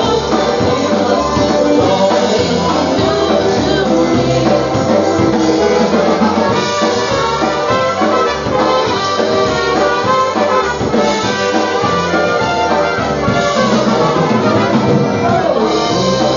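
Live polka band playing, with accordion and trumpets over drums and a steady bass beat.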